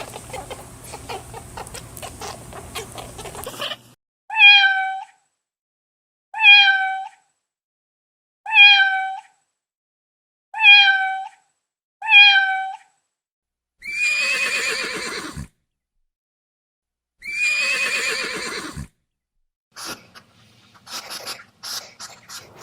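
Domestic cat meowing: five short, identical meows about two seconds apart, then two longer, drawn-out meows. An unclear, busy crackling sound fills the first few seconds.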